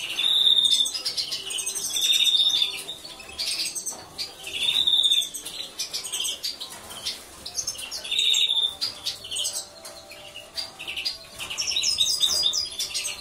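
Caged European goldfinches calling and twittering, with bright clear notes and chattering phrases that come in loud bursts every few seconds.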